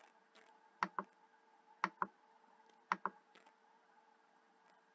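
Quiet computer clicks in pairs, about one pair a second, made while paging through presentation slides, over a faint steady hum.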